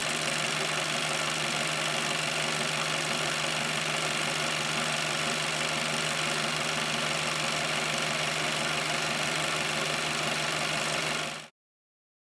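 Steady rain hiss with a low hum under it, unchanging, which cuts off abruptly about a second before the end.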